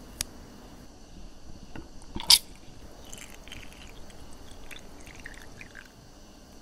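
Metal tongs setting peeled lychees into a drinking glass: a small click just after the start, then a loud sharp tap about two seconds in. From about three seconds in, a red drink is poured from a glass jug over the fruit, splashing and trickling for about three seconds before it stops.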